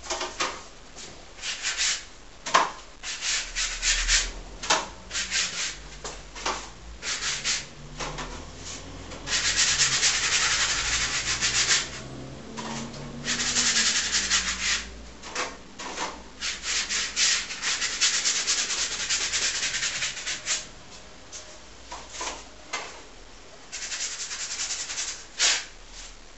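Paintbrush scrubbing acrylic paint across a large stretched canvas: quick separate strokes at first, then longer runs of continuous scrubbing a few seconds each.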